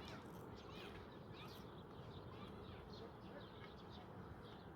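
Faint, busy chirping of many small birds, with short high chirps overlapping irregularly.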